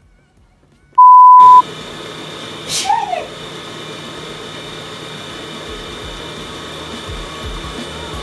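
A single loud, pure, steady beep tone lasting about half a second, about a second in, of the kind added in editing. It is followed by steady room noise with a faint high whine and one brief sharp sound about three seconds in.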